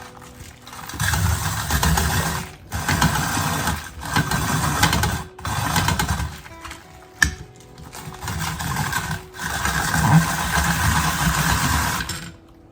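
Food processor motor running in six bursts of one to two and a half seconds with short pauses between them, shredding vegetables for coleslaw, with a sharp click about seven seconds in.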